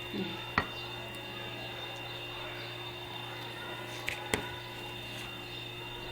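Dough being handled onto a plate: a few light knocks, one about half a second in and two close together around four seconds in, over a steady background hum.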